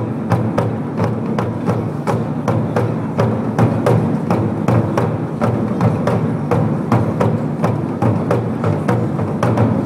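Japanese taiko drums beaten with wooden sticks in a fast, steady rhythm: deep drum strokes mixed with sharp, dry clicks.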